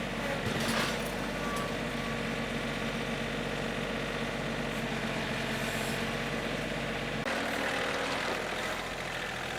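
Engine of a home-built sawmill running steadily. Its sound changes abruptly about seven seconds in, when the deepest hum drops away.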